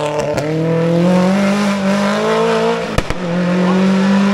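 Rally car engine accelerating hard, its pitch climbing steadily. About three seconds in comes a sharp crack and a slight drop in pitch, like an upshift, and then it runs on high.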